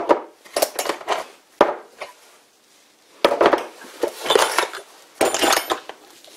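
Small metal lathe parts (threaded bushings and tools) clinking and clattering as they are rummaged in a wooden box and set down on a wooden workbench. A few knocks at first, a short lull, then several bursts of clatter with some bright metallic ringing in the second half.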